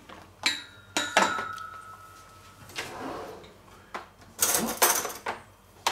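Kitchen handling sounds as a plastic food-storage container with a clip-on lid is picked up and opened. A few sharp clicks and knocks come in the first second or so, one leaving a short, thin ringing tone, followed later by scraping and rattling.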